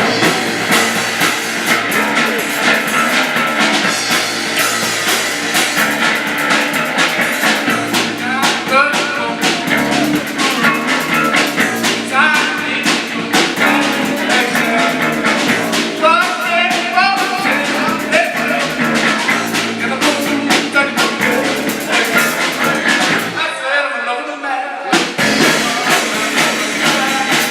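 Loud rock-style music with a steady drum beat and guitar, with a singing voice in places; the bass briefly drops out near the end.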